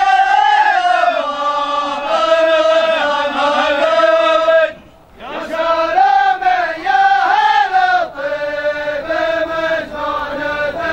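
Male voices chanting a sung Arabic welcome poem in unison, with no instruments. Long drawn-out phrases glide up and down in pitch, with a short pause about five seconds in.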